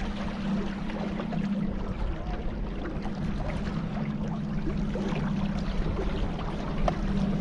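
Steady low engine drone holding one pitch, under a continuous hiss of rushing air or water.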